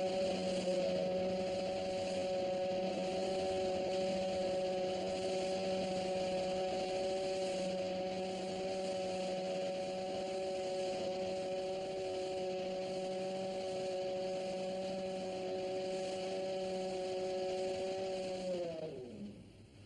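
Crane hoist motor humming steadily while lifting a bathyscaphe on chains, then winding down in pitch and stopping near the end.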